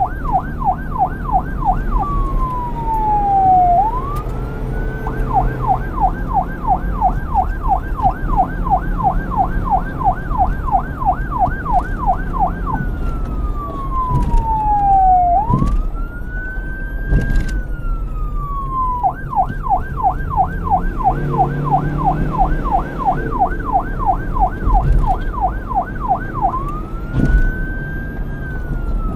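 Electronic police siren, alternating between long stretches of fast yelp, about four warbles a second, and slow wails that fall and rise, over a steady low rumble.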